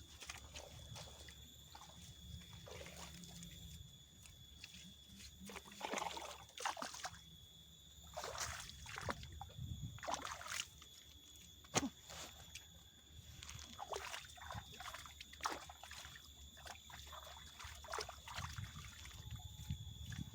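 Small waves of reservoir water lapping and sloshing at the shore in irregular splashes, over a faint steady high-pitched whine.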